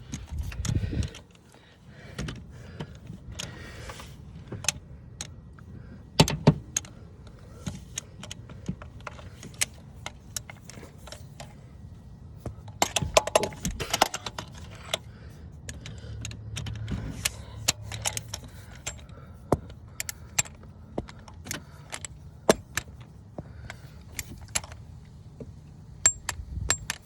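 Metal hand tools clinking and clicking as a torque wrench is fitted onto a socket extension and a spark plug is torqued down. The clicks come irregularly throughout, with a few louder knocks.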